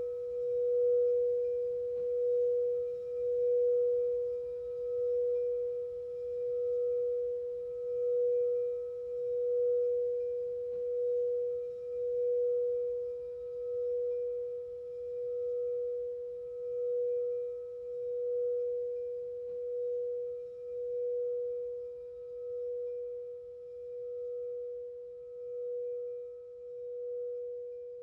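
A singing bowl ringing one sustained tone, pulsing in a slow wobble about every two seconds and gradually fading.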